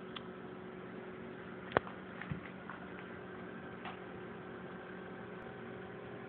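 Steady low room hum with a few faint taps and one sharp knock about two seconds in.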